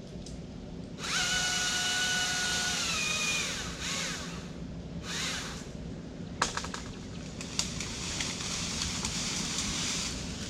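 Battery-powered chainsaw motor whining up, holding a steady high pitch for about two seconds, then spinning down. Two short blips of the trigger follow, then clicks and rustling of branches.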